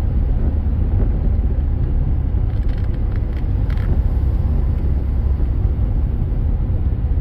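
A car driving, heard from inside the cabin: a steady low rumble of road and engine noise.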